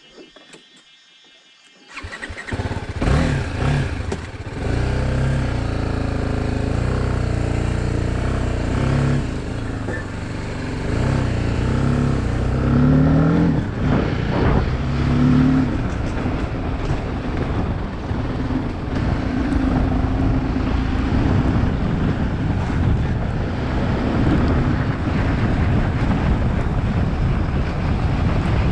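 Motorcycle engine starting about two seconds in, then running and revving, with rises and falls in pitch, as the bike pulls away and rides on steadily.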